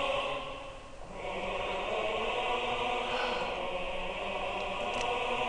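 Sustained choir-like music of steady held tones, swelling in about a second in. It is the livestream's donation alert sound for a 1,000 star balloon gift.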